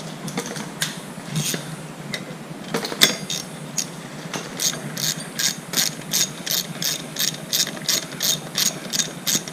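Hand socket ratchet clicking as a bolt is worked. A few scattered clicks come at first, then a steady run of about three clicks a second from about halfway through.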